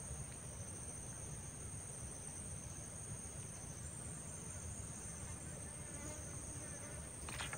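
Faint, steady, high-pitched drone of an insect chorus, an unbroken buzz that holds level throughout, over a low background rumble.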